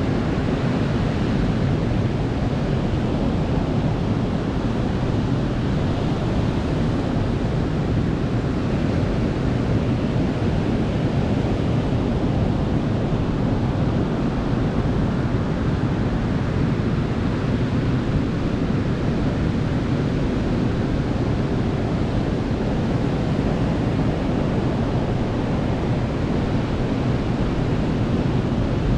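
Ocean surf washing onto a beach: a steady, even rush of waves with no single break standing out.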